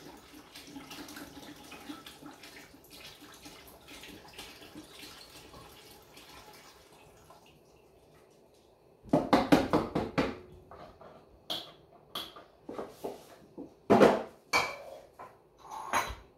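Chicken stock poured from a carton into a large stainless-steel stockpot, a steady splashing that tapers off about seven seconds in. Then a loud clatter about nine seconds in, followed by scattered knocks and clinks, with another loud knock near fourteen seconds.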